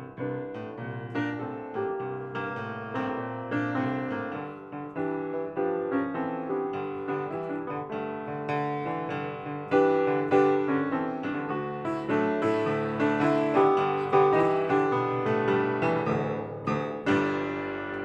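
Piano music playing, a flowing line of many quick notes over held chords.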